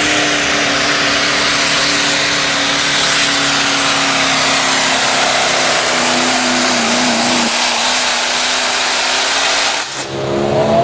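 Diesel pickup truck's engine running hard under full load while pulling a weight-transfer sled, with heavy exhaust and turbo noise; the engine note sags a little about two-thirds of the way through as the sled bears down. Near the end it cuts off abruptly to another engine revving up.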